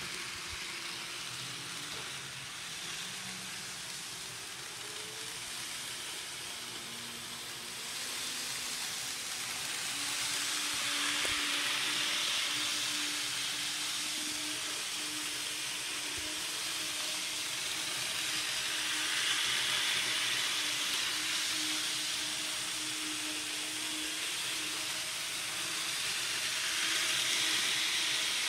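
Bachmann N-scale diesel locomotives running on Kato track: a steady hiss of small wheels and motors with a thin motor whine. The whine climbs as the speed is turned up, then holds steady and grows louder about ten seconds in.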